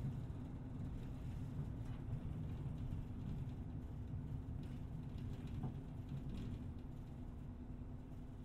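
Small city bus running, heard from inside the cabin: a steady low engine and road rumble with a constant engine hum, easing slowly quieter, with a few faint rattles.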